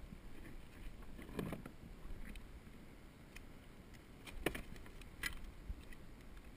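Low, steady wind and water rumble on a camera aboard a kayak, with a few sharp clicks and knocks. The loudest two come a little under a second apart past the middle, as a caught sea bass is unhooked and taken in a lip grip on the plastic hull.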